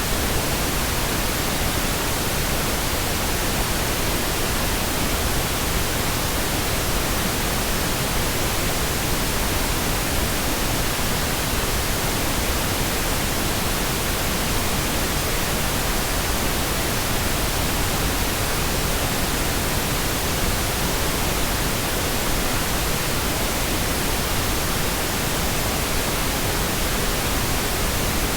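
Steady, unchanging pink noise: an even hiss across the whole range, with more weight in the lows than white noise.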